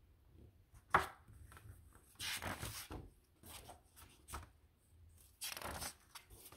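Pages of a paperback picture book being turned and pressed flat by hand: a sharp tap about a second in, then two papery swishes.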